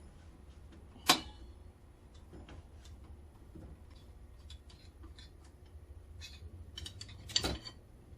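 Metal clicks and light ticking from a clutch spring compressor being unscrewed and lifted off a transmission clutch drum. There is a sharp metallic click about a second in, scattered faint ticks, and a short cluster of clinks near the end, over a steady low hum.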